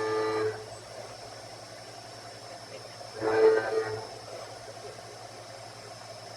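Syil X7 CNC mill cutting A36 steel with a helical endmill: a whining cutting tone with evenly spaced overtones fades out about half a second in. A short burst of the same whine about three seconds in, the loudest moment, marks the cutter entering the cut again, over a steady low machine hum.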